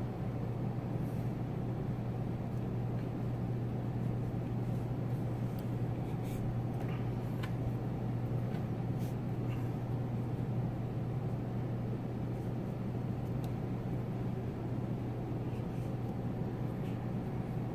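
A steady low machine hum with a hiss under it, and a few faint ticks and rustles from braided fishing line being worked by hand.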